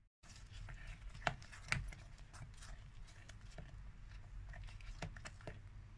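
Silicone spatula stirring thickening pastry cream in a saucepan: soft scrapes and light knocks against the pan, the loudest about a second and a half in and a few more near the end.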